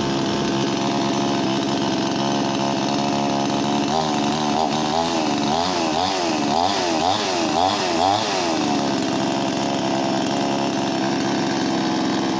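A 58cc two-stroke chainsaw, sold as a Stihl 271 Farm Boss, running unloaded at a steady idle. From about four seconds in to about eight seconds in, its engine speed swings up and down about twice a second, then it settles back to an even idle.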